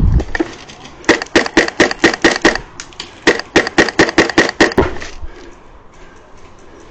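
Airsoft rifle firing in rapid runs of sharp shots, about six a second, twice in a row. Fainter shots follow near the end.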